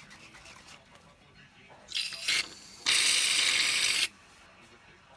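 Aerosol can of shaving cream dispensing: two short spurts about two seconds in, then one long hissing spray of about a second.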